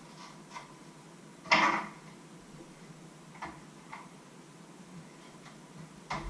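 Kitchen handling noises: one sharp clatter about a second and a half in, then a few soft knocks and clicks as objects are picked up and set down.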